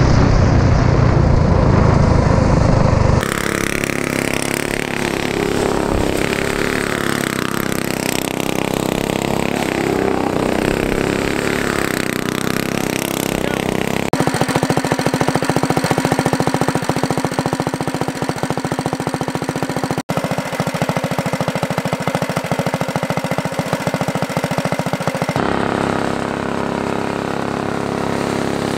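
Go-kart's stage-one Predator small engine being driven hard, its pitch rising and falling as it revs up and drops back, then held at a steady high rev. The sound changes abruptly several times as the shots cut, with heavy low rumble in the opening seconds.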